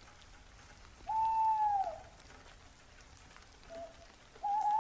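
Faint steady rain falling, with a louder drawn-out pitched call about a second in that sags in pitch as it ends, a brief short note a little later, and another held call starting near the end.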